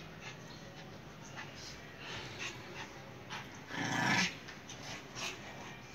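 Two Shih Tzus play-fighting on a bed: scuffling on the bedding and dog growls, with a louder outburst about four seconds in.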